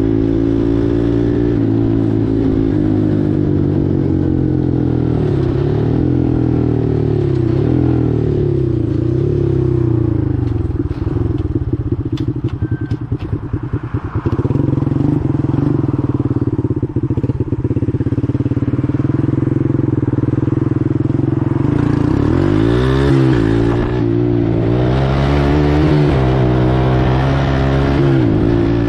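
Four-wheeler (ATV) engine running while riding, its pitch rising and falling with the throttle. There is a stretch of rattling about midway, and stronger revving near the end.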